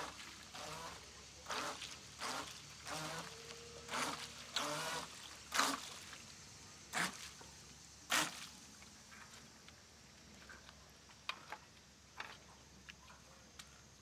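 Water splashing in short bursts, several in the first eight seconds, then fewer and fainter.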